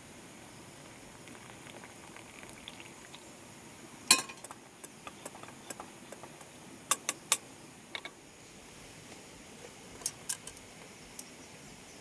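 Scattered sharp clicks and knocks of small hard objects being handled over a steady faint hiss. The loudest knock comes about four seconds in, and a quick run of three clicks comes about seven seconds in.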